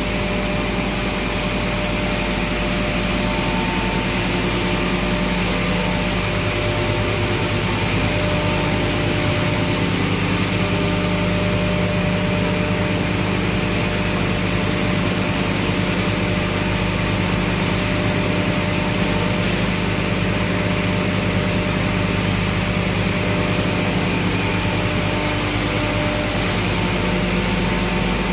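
Sawdust pellet production line machinery running: a steady industrial drone with several constant hum tones, unchanging throughout.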